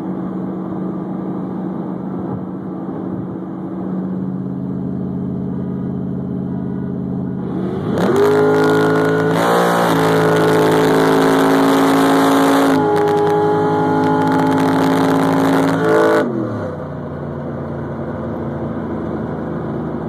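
Car engine running at a steady drone, then revving sharply about eight seconds in and running hard at full throttle for about eight seconds. The pitch breaks twice along the way, and the engine lifts off and falls back to a lower drone.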